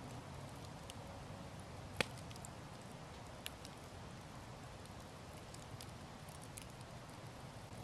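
Campfire logs burning with a faint low hiss and scattered crackles, one sharp pop about two seconds in and a smaller one about a second and a half later.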